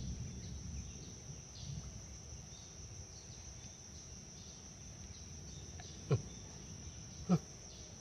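Insects chirring in a steady, high-pitched drone. Two short, sharp sounds come near the end, about a second apart.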